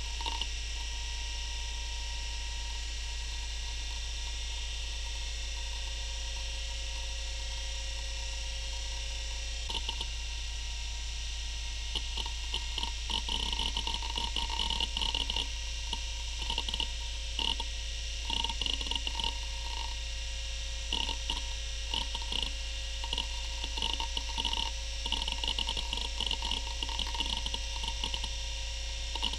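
Western Digital Caviar 2340 IDE hard drive spinning with a steady whine and hum. From about ten seconds in, its heads seek in irregular bursts of clicking and chattering as Windows 95 boots from it.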